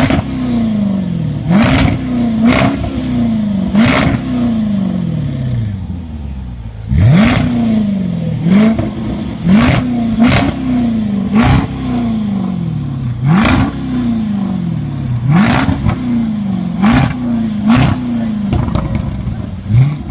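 Jaguar SVR's supercharged 5.0-litre V8 being blipped over and over, about one rev a second or so, each rising sharply and falling away slowly. A sharp exhaust crackle or pop comes with each blip. There is a short pause about six seconds in.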